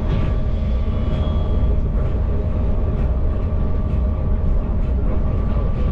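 Passenger ferry's engine running steadily under way: a loud, even low drone with a steady hum over it.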